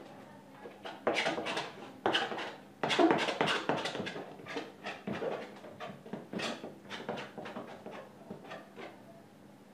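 Palette knife scraping and dabbing paint onto a canvas: a string of short, irregular scraping strokes, about one or two a second, loudest around three seconds in and fading out near the end.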